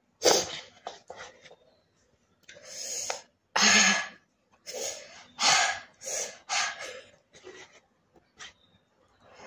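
A run of about ten short, loud, hissing slurps and sharp breaths drawn through the mouth while eating very spicy instant noodles, the sign of burning chilli heat.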